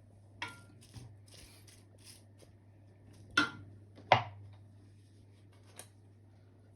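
A few sharp knocks and clatters of kitchen utensils against cookware, two loud hits past the middle, one of them ringing briefly, over a low steady hum.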